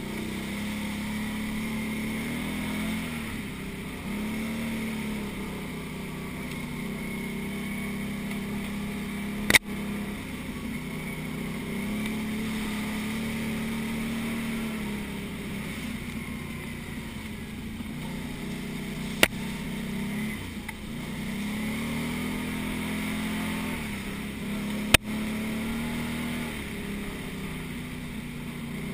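Can-Am quad bike engine running as it is ridden along a rough dirt lane, its revs rising and falling repeatedly with the throttle. Three sharp knocks cut through, the loudest sounds in the stretch.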